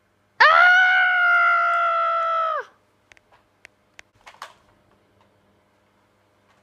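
A child's voice letting out one long high-pitched scream of about two seconds, rising at the start and dropping off at the end, followed by a few light clicks and knocks.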